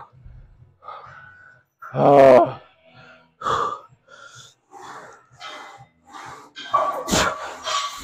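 A man's heavy, strained breathing during a leg-press rep, with a loud grunt about two seconds in and a thump about seven seconds in.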